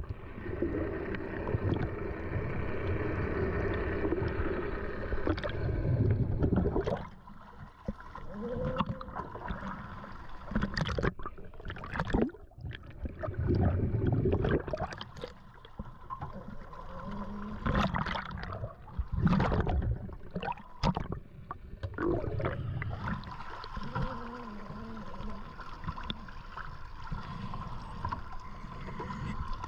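Underwater scuba breathing: a regulator hissing, with bursts of exhaled bubbles gurgling every few seconds. Near the end, water sloshing as the diver surfaces at the boat's stern ladder.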